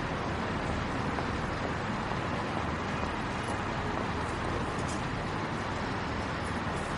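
Metro station ambience: a steady, even wash of station noise with a few faint high clicks.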